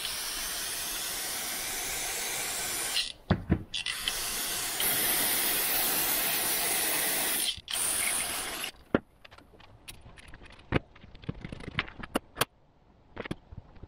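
Aerosol brake cleaner hissing out of the can in three sprays, a long one, a longer one after a short pause, and a brief last one, flushing a small engine solenoid and its filter clean. After that, a few light clicks and taps as the parts are put down on the bench.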